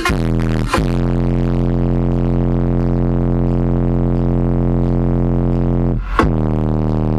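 Crown Audio 15-inch subwoofer playing bass-heavy music, loud: one long held low bass note, buzzy with many overtones, broken by short sweeping changes near the start and again near the end.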